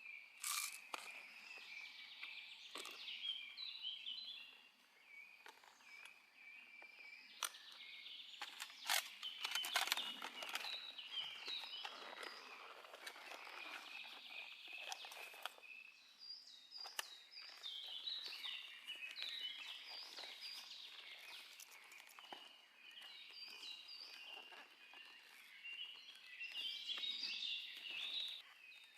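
Songbirds chirping and singing repeatedly, with scattered sharp clicks and knocks of hand work close by, the loudest a cluster about nine to ten seconds in.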